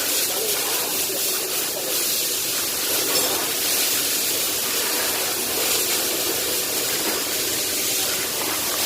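Steady, unbroken hiss of a pressurised spray or air jet, as from a cleaner spray or an air blow gun during engine cleaning.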